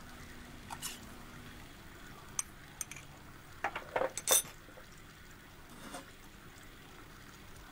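Tableware clinking: a few scattered light knocks of glass or dishes, the loudest cluster about four seconds in, over small liquid sounds.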